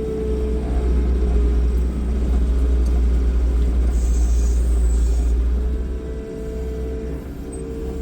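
New Holland L225 skid loader's diesel engine running while the grapple loads logs onto a trailer. It gets louder about a second in and eases back near six seconds, with a steady whine that fades in and out.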